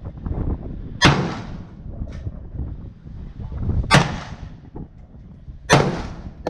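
Three AR-15 rifle shots, each a sharp crack with a short echoing tail. The first two are about three seconds apart and the third follows about two seconds later, with a low rumble between them.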